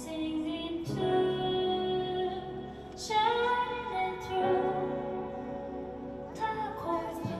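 A woman singing a gentle song live with instrumental accompaniment, holding long notes.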